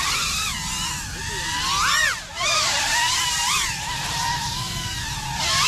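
GepRC Cinelog 35 cinewhoop quadcopter's brushless motors and propellers whining inside 3D-printed prop guards. The pitch rises and falls as the throttle changes, with a short dip about two seconds in.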